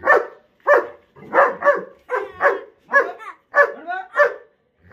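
German Shepherd barking repeatedly, about nine sharp barks at roughly two a second.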